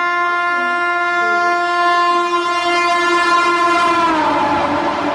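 Air horn of a WAP-7 electric locomotive hauling the Shatabdi Express, sounded in one long steady blast as the train speeds past. About four seconds in, the horn's pitch drops as the locomotive goes by, and the rushing noise of the passing coaches takes over.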